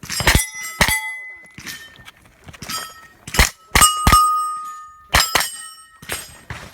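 A string of about ten rapid shots from a 9mm AR-style pistol-caliber carbine, in quick pairs and singles, with steel targets ringing out in a metallic clang as they are hit.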